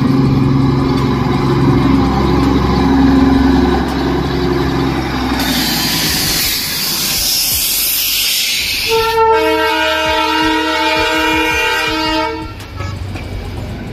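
Darjeeling Himalayan Railway narrow-gauge diesel locomotive passing close by, its engine running with a low drone. A loud hiss follows for about three seconds, then a long horn blast lasting about three seconds.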